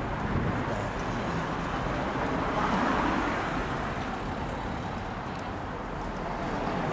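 Road traffic noise from cars on a city street, swelling as a car passes about three seconds in.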